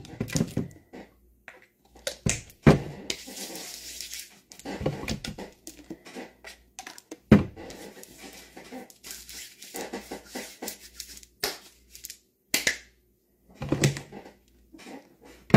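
Handling noise: scattered light knocks and clicks with some rustling as small objects are picked up and moved, with a brief hissing rustle about three seconds in and a few sharper knocks later on.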